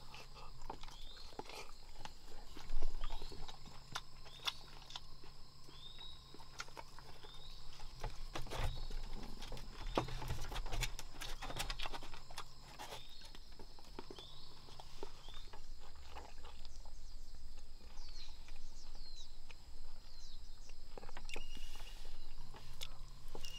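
Tropical forest ambience: a short chirping call repeated about once a second over a steady high insect drone, with scattered knocks and rustles.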